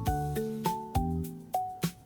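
Background music: plucked or mallet-like instrumental notes over a steady beat.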